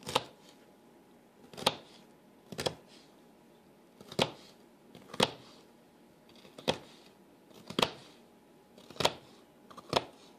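Chef's knife chopping green bell pepper strips on a plastic cutting board: a sharp knock of the blade hitting the board about once a second, ten strokes in all.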